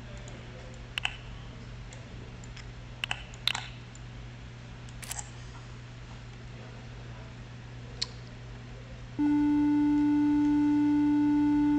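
A few sharp mouse clicks, then about nine seconds in a steady electronic tone starts suddenly and holds: the micro:bit simulator in the MakeCode editor playing a ring tone at middle D, with several overtones.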